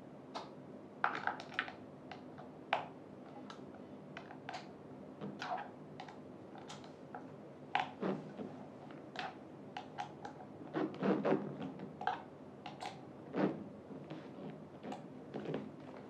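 Irregular light clicks and knocks of gaming-chair parts and a hand tool being handled during assembly, a few a second with a short dense cluster about two-thirds of the way through, over a faint steady hum.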